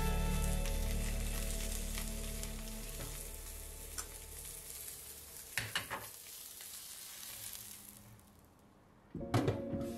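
Food frying in a pan, an even sizzle with a few sharp clicks, dying away toward the end. Background music fades out during the first few seconds, and a new burst of sound with clicks comes in near the end.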